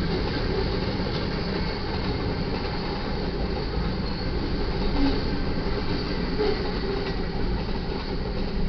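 Freight cars of a manifest train rolling past at a grade crossing: a steady rumble of steel wheels on rail. Brief wheel squeals are heard now and then, about a second in and again around five and six and a half seconds.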